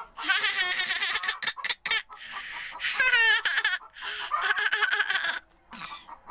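High-pitched laughing and squealing in several bursts, with a quick wavering pitch.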